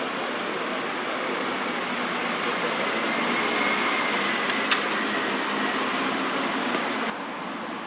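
Steady rush of distant road traffic, with a single sharp click partway through; the noise drops a little near the end.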